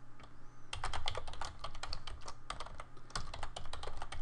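Typing on a computer keyboard: after a short pause, a fast, uneven run of keystrokes starts under a second in and goes on.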